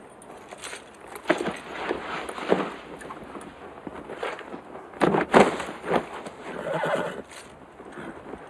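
Horses whinnying, with hooves shifting, in separate bursts at about one and a half, five and seven seconds in.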